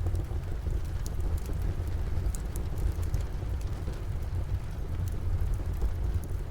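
Steady rain with a deep, even rumble underneath, and a few sharp crackles and pops from a wood fire in a fireplace scattered through it.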